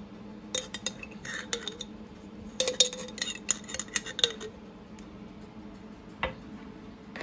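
Metal spoon clinking and scraping against a glass jar and a bowl while scooping out thick jerk seasoning paste: two clusters of sharp clicks and clinks, then a single tap near the end.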